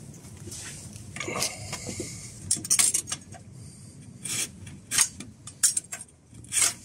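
Pruning saw cutting into a wooden pole in short strokes, several of the loudest coming about half a second apart in the second half.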